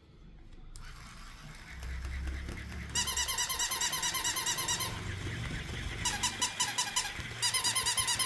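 Capybara toy's electronic sound unit giving out rapid, repeated high-pitched squeaks, several a second, in three runs starting about three seconds in.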